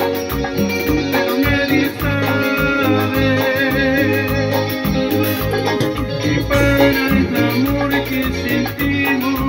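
Live cumbia music: an electronic keyboard melody over a pulsing bass line and a steady percussion beat.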